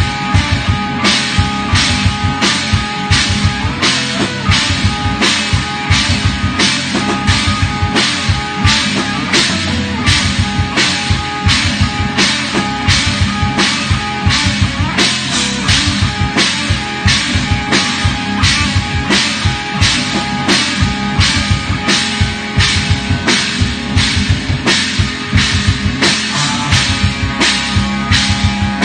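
Progressive metal band playing, with the drum kit loudest: a steady beat of hits about twice a second over held guitar and bass notes.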